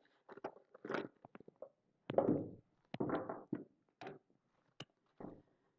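Oracle cards being shuffled and handled, faint irregular rustles of card against card with a few light clicks and taps, in short bursts with pauses between them.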